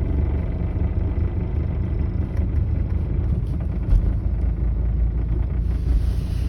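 The 850R's engine running steadily with a low rumble, a short louder knock about four seconds in, and a hiss that rises near the end.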